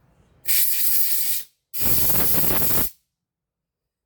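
Two bursts of pressurised spray hissing, about a second each, the second following right after the first and cutting off sharply.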